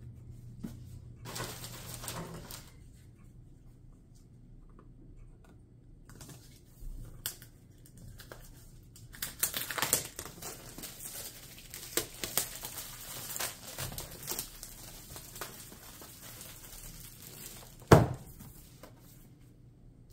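Fingernails picking and scratching at the seal of a cardboard box in irregular bursts, with many small clicks, then one sharp knock near the end.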